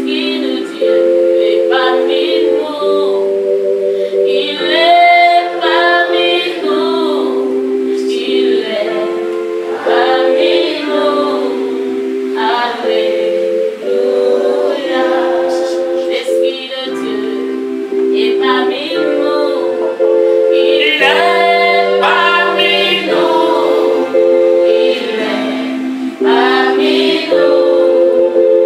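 Worship music: several voices singing together over sustained keyboard chords that change about once a second.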